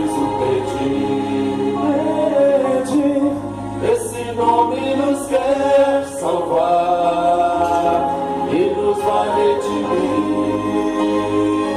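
Church vocal group singing a gospel worship song in harmony, with long held notes over a steady low accompaniment.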